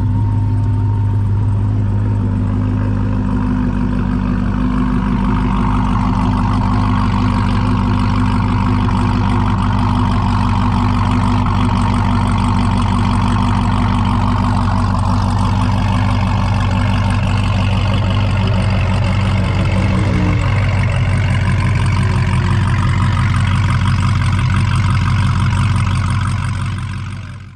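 Lingenfelter Magnuson-supercharged C8 Corvette's 6.2-litre V8 idling steadily. Its note shifts slightly about twenty seconds in, and the sound fades out at the end.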